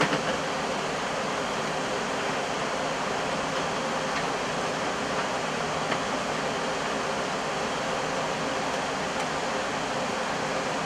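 Steady rushing noise of the Airbus A320 flight deck in flight, airflow and air-conditioning hiss with a faint steady hum underneath. A brief click at the start and another about six seconds in.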